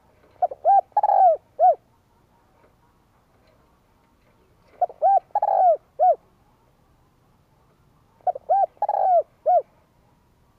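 Spotted dove cooing: three phrases about three and a half seconds apart, each two short coos, a longer coo and a short closing coo.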